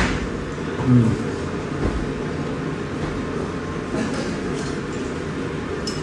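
Steady background noise of a small restaurant dining room, with one sharp click at the start and a short low sound about a second in.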